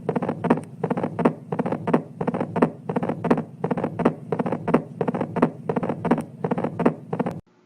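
Recorded heart sounds of mitral stenosis: a fast, regular run of sharp double knocks over a low steady hum. Each beat is a softer knock from the opening snap of the stiffened mitral valve, then a louder knock from the valve closing. The recording cuts off suddenly near the end.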